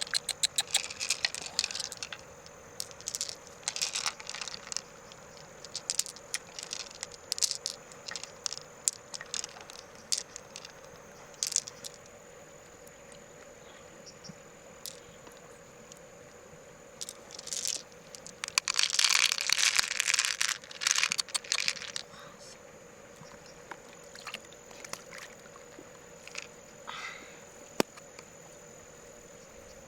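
Irregular sharp clicks and crackling, typical of shells and objects being handled, with a dense stretch of crackling about two-thirds of the way in. A faint steady hum and a thin high whine run underneath.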